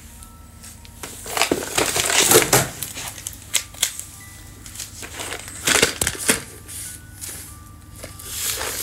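Crinkling, crackling handling noise in irregular bursts with a few sharp clicks, loudest about one and a half to two and a half seconds in and again about six seconds in.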